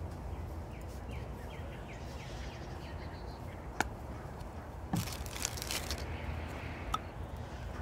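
A plastic saline bottle being opened by hand: a sharp click about four seconds in, then about a second of crinkling as the cap and seal are worked, and another click near the end, over steady outdoor background noise.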